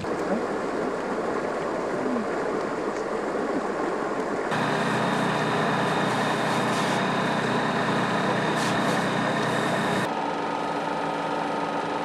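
Machinery running steadily, changing abruptly about four and a half seconds in and again about ten seconds in. The middle stretch carries a steady high whine over the hum.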